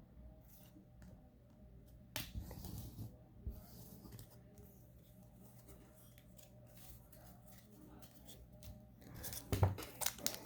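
Trading cards and their packaging being handled by hand: soft rustles and light clicks, busier about two seconds in and loudest in a run of clicks near the end.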